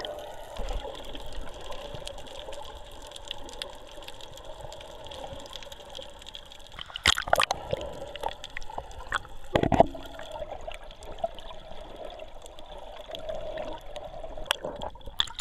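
Muffled underwater water noise picked up by a submerged camera while snorkelling, with a couple of sharp knocks about seven and ten seconds in.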